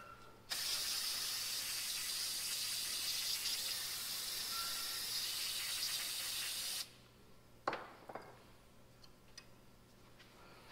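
Aerosol spray can hissing in one steady spray of about six seconds onto the fins of a tractor radiator core, cutting off sharply; a single light click follows about a second later.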